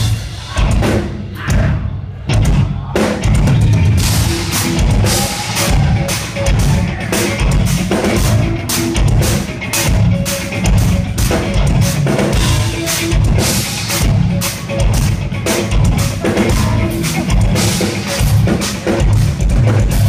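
Instrumental progressive metal band playing live: busy drum kit with rapid bass drum and snare hits under electric guitar, loud and continuous, heard from within the audience.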